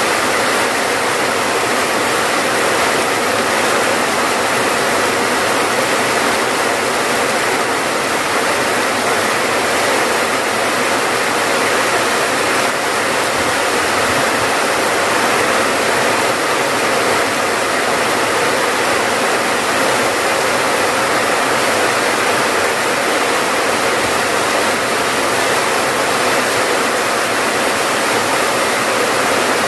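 Steady heavy rain falling without a break.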